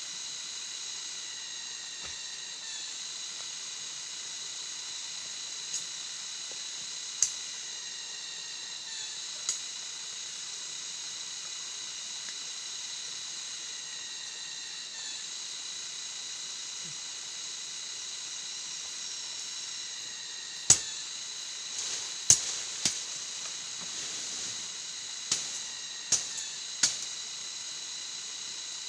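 Steady high-pitched drone of forest insects, such as cicadas, made of several even tones, with a few sharp knocks or snaps. Most of the knocks come in the last third.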